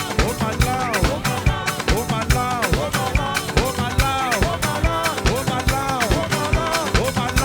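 Live gospel band playing an instrumental stretch: a steady drum-kit beat with percussion under pitched lines that bend up and down.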